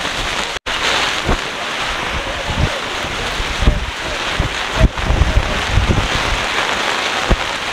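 Strong storm wind gusting hard with rain, the wind buffeting the microphone in irregular low thumps. The sound cuts out for an instant about half a second in.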